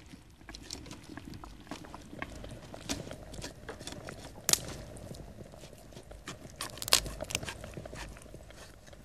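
Butcher's knife cutting and scraping meat from the bones of a carcass on a wooden table: irregular small clicks and scrapes, with a few sharper knocks about three, four and a half and seven seconds in.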